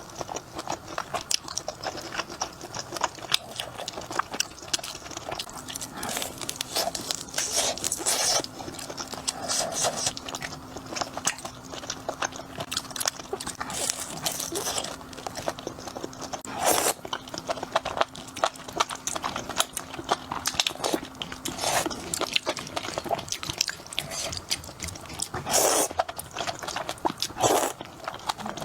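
Close-up eating sounds: crunchy bites and chewing, a dense run of crisp crackles with several louder crunches.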